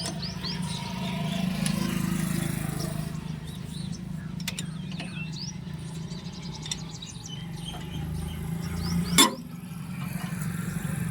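Tractor engine running steadily at idle, with a single sharp knock about nine seconds in and small bird chirps over it.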